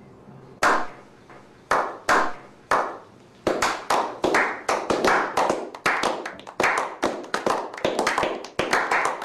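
A small group of men slow-clapping: single hand claps about a second apart at first, quickening from about three and a half seconds in into steady clapping, roughly three or four claps a second.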